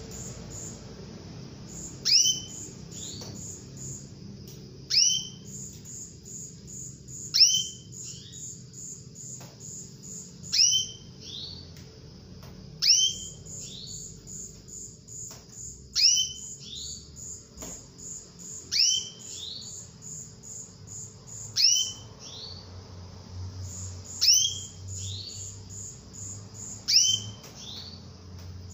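Female canary calling for a male: a sharp, steeply falling call note repeated about every three seconds. Between the calls runs a fast, even, very high pulsing trill.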